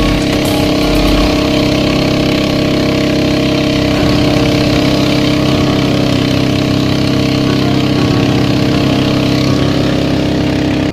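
The engine of a long, narrow passenger motorboat running steadily at speed, with water rushing and spraying along the hull. It cuts off suddenly at the very end.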